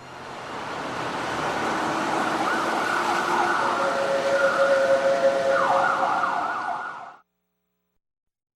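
A wash of noise that swells up, with siren-like wailing and gliding tones running through it, then cuts off suddenly about seven seconds in.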